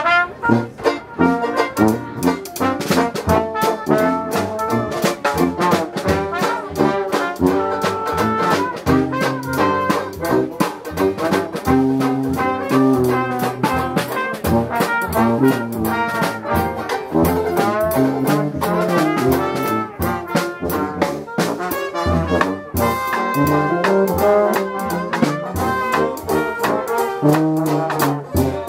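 Live Dixieland jazz band playing, with trombone and other brass over a sousaphone bass and a steady drum beat.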